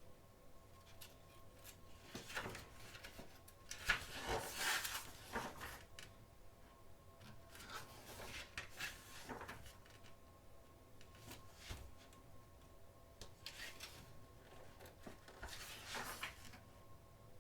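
Magazine pages being turned and handled: several short papery swishes and rustles, the loudest cluster about four to five seconds in.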